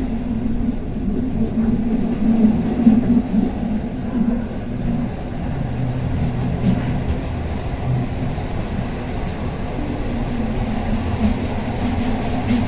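Bernina Express train running, heard from inside the passenger carriage: a steady rumble of wheels and running gear on the rails.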